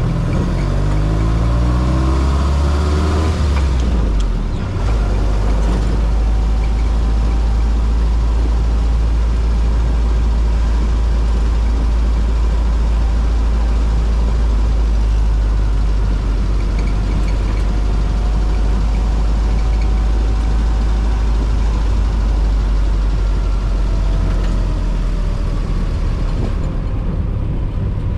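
Jeep CJ-5 engine revving up through a gear in the first few seconds. There is a brief dip at about four and a half seconds at a gear change, then it runs steadily at cruise with a loud, even low rumble.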